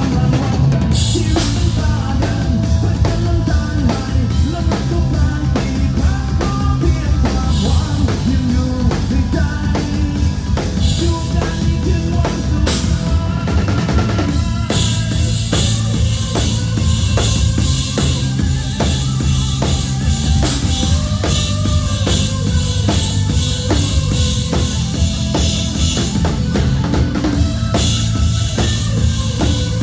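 Rock band playing live in an instrumental passage: a drum kit with bass drum and snare keeps a steady, busy beat under held melodic instrument lines, with no singing.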